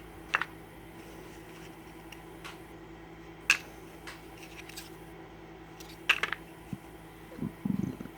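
Cardboard game tiles being handled and set down: a scattering of light sharp clicks and taps, with a short soft rustle near the end. A low steady hum runs underneath.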